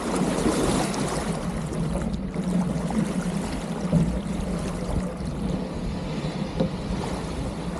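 Water rushing and splashing along the pram bow of a small SCAMP sailboat as it moves through shallow water.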